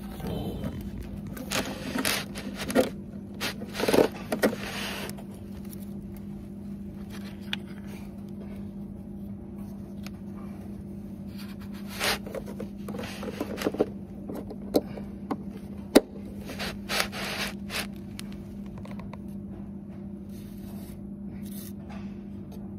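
Irregular scraping, rubbing and sharp clicks of drain-pipe parts being handled and fitted, heaviest in the first few seconds and again midway, with one sharp click. A steady low hum runs underneath.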